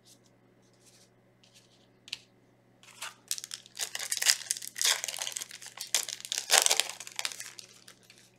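Foil wrapper of a Yu-Gi-Oh booster pack crinkling as it is handled and torn open, a few soft rustles first, then about four seconds of loud crinkling that fades near the end.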